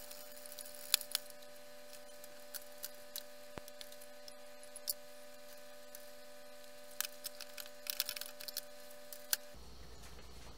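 A metal knife clicking and scraping against the inside of a glass loaf pan, then a quick run of light knocks and taps as the pan is turned over to work loose a loaf that is sticking to it. A faint steady hum runs underneath and cuts off near the end.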